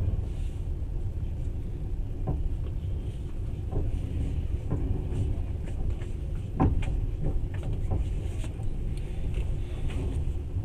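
Passenger train running, heard from inside the carriage: a steady low rumble with scattered, irregular knocks and clacks, the loudest about six and a half seconds in.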